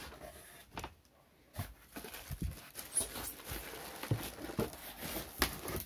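Plastic bag crinkling and rustling around a juicer body as it is gripped and shifted in its polystyrene packing, with a scattering of short knocks and scrapes from the handling.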